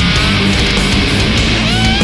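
Heavy metal instrumental passage: distorted guitars, bass and drums. A lead guitar holds a note that ends about half a second in, then slides up into a new note near the end.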